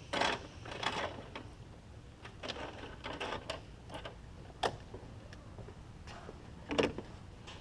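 Hands working on engine-bay vacuum hoses and fittings at the boost solenoid: irregular clicks, snaps and short scrapes, with two sharper clicks in the second half.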